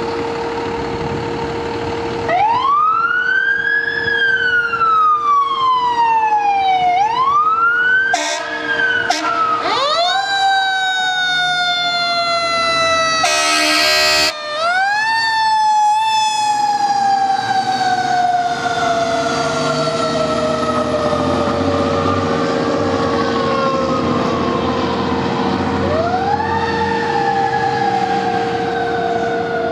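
Fire apparatus sirens wailing, each sweep rising quickly and falling off slowly, two of them overlapping in the middle, over a steady tone. The air horns sound in short blasts about eight seconds in and one longer blast about thirteen seconds in.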